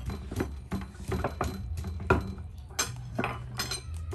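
A knife chopping on a wooden cutting board mixed with a wooden pestle pounding in a clay mortar: irregular knocks, about three a second, over a steady low hum.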